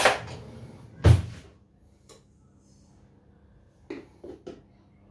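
Kitchen cutlery drawer being rummaged and pushed shut, with a heavy thud about a second in. Then three light clicks near the end as sugar is spooned out of a plastic container.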